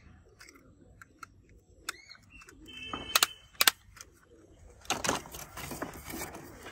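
Handling noise of plastic toys: scattered sharp plastic clicks, a brief squeak about three seconds in, then rustling and scraping as toy arrows and a plastic disc are moved around inside a styrofoam box.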